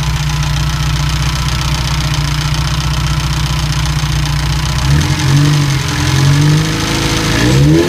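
Ferrari 308 QV's four-valve V8 idling steadily with a ticking, then revved up and down several times from about five seconds in. The ticking appeared after a major service and persists after the owner fixed several possible causes.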